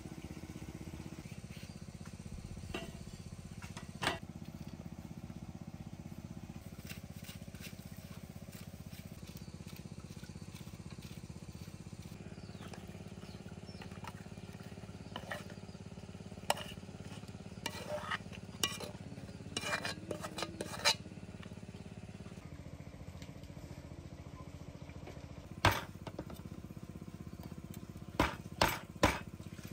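Metal kitchen utensils clinking and scraping: a spoon knocking against a metal wok as pork adobo is spooned out, a scattered run of clinks. Near the end come three sharp metallic strikes as a knife point is punched into the lid of a tin can to open it. A steady low background runs underneath.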